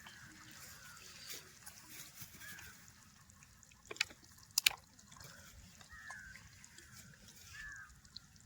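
Faint short chirping animal calls repeating about once a second over quiet background, with two sharp clicks near the middle.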